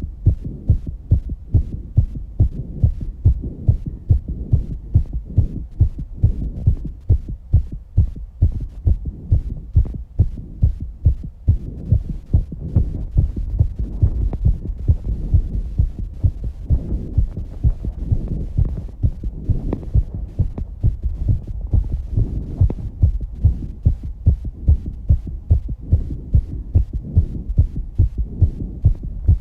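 A human heartbeat recorded close up, beating fast and regularly after exercise, each beat a muffled thud over a steady low rumble.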